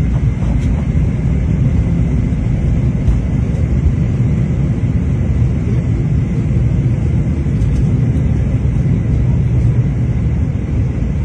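Passenger plane taking off, heard inside the cabin: a loud, steady low rumble of engines and rushing air.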